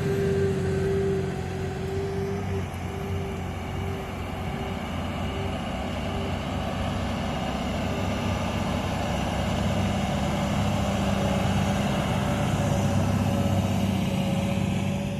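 Large New Holland farm tractor's diesel engine running steadily under load, ploughing, with a higher whine that fades out about halfway through.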